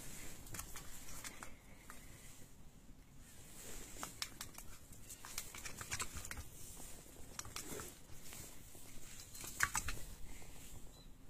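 Faint, scattered light clicks and pattering of Ragdoll cats' paws and claws on wooden deck tiles as they walk about.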